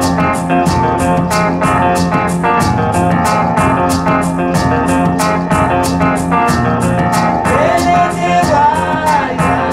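Guitar-led music with a steady beat of about four drum strokes a second, played from an LP record over Goebel Divin Majestic bending-wave loudspeakers, with a gliding melody line near the end.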